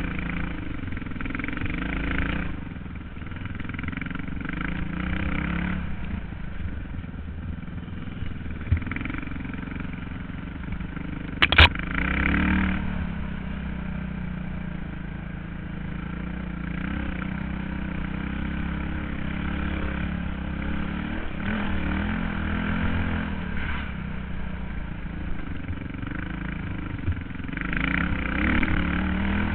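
Suzuki DR350 dirt bike's single-cylinder four-stroke engine running on a trail ride, its revs rising and falling with the throttle, with one sharp knock partway through.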